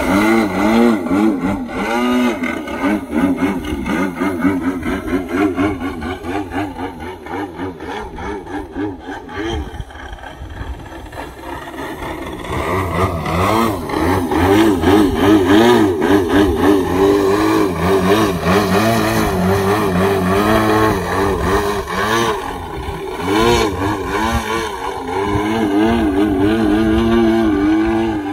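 OS GT33 single-cylinder two-stroke petrol engine and propeller of a radio-controlled Extra 330 aerobatic model plane in flight, the note wavering up and down several times a second through 3D aerobatic manoeuvres. It dips somewhat a third of the way through, then comes back louder.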